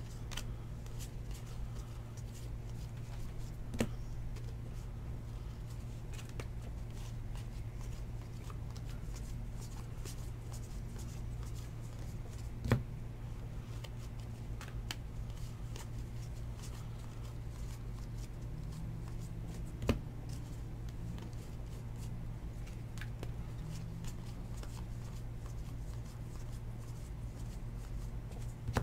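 Baseball trading cards being flipped through by hand, card stock sliding and flicking against card stock in a run of small ticks, with three sharper taps along the way. A steady low hum runs underneath.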